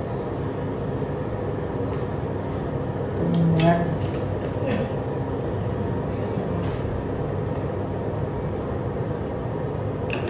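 A steady low hum runs throughout. About three and a half seconds in, a metal ladle clinks against a steel cooking pot of soup, with a few lighter clicks after it.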